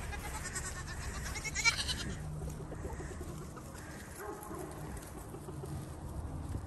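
Pygmy goats bleating a few times as the herd trots along, over a steady low rumble.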